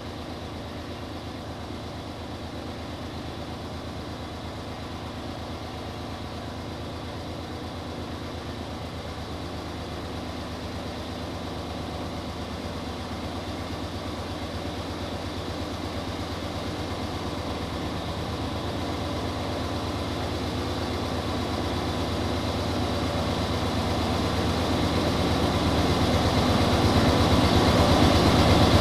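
Diesel locomotives at the head of an iron-ore freight train approaching, their engine drone growing steadily louder throughout.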